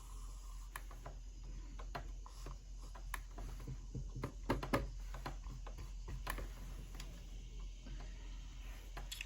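Irregular light clicks and taps of a computer mouse and keyboard, a dozen or so scattered over a faint steady hum.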